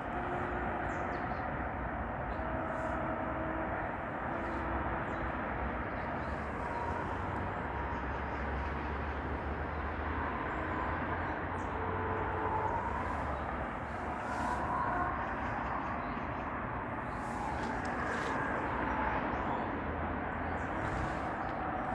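Forest outdoor ambience: a steady rushing hiss over a low rumble, with short faint calls here and there throughout.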